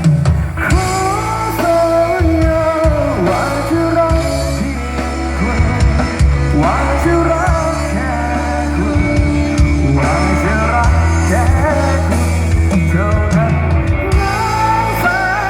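A band playing a Thai pop-rock song, a singer's voice wavering over a strong, steady bass line.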